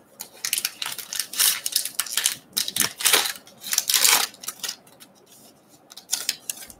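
Allen & Ginter X trading card pack wrapper being torn open by hand, a run of crinkling, tearing rustles.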